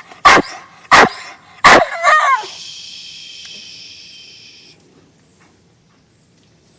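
Dog barking three sharp barks in quick succession, then a short wavering, whining "talking" call about two seconds in.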